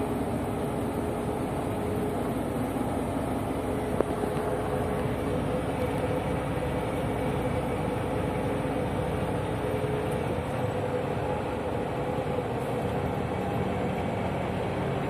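Steady engine and road noise heard from inside the cab of a truck driving along a highway, with one sharp click about four seconds in.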